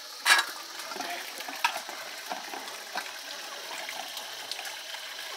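Water sloshing and splashing as chunks of buffalo skin and bone are washed by hand in a steel bowl, over a steady hiss of running tap water. A sharp splash or clink comes about a third of a second in, with lighter clicks after.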